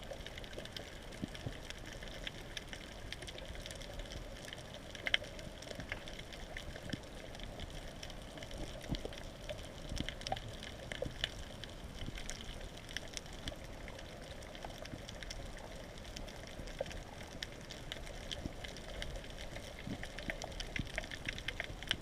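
Underwater ambience: a steady watery hiss scattered with many short crackles and clicks.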